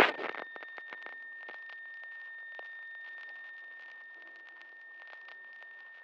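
A loud crackling burst dies away in the first half second, then sparse faint clicks and crackles continue over a steady high-pitched tone, which stops near the end.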